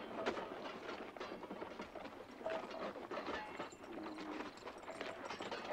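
Horses walking on dry dirt, their hooves clip-clopping in an irregular, overlapping string of knocks.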